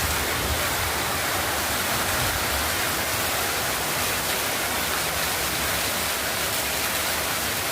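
Heavy rain falling steadily, a dense even hiss with no single drops standing out.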